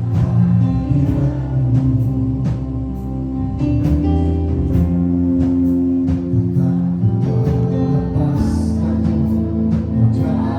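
Worship song played by a band with guitar and a steady beat, with singing over it.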